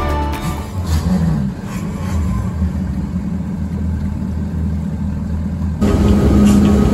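Quad Mercury Racing 450R supercharged V8 outboards. They rumble low with a brief rev about a second in, then about six seconds in give way to a louder, steady drone of the engines running at speed.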